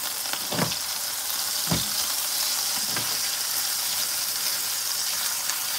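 Seasoned chicken breast frying in oil in a stainless-steel skillet: a steady high sizzle, with three soft knocks about a second apart in the first few seconds.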